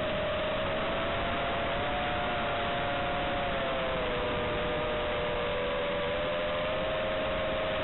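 An FPV quadcopter's brushless motors whine steadily in flight over a constant hiss, carried as low-fidelity onboard audio. The whine is two close tones whose pitch sags a little about halfway through and rises again near the end.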